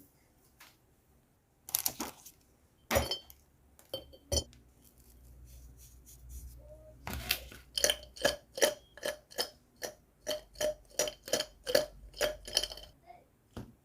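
A kitchen utensil clinking against a dish. A few separate clinks come in the first few seconds, then a quick run of about three clinks a second lasts for around six seconds.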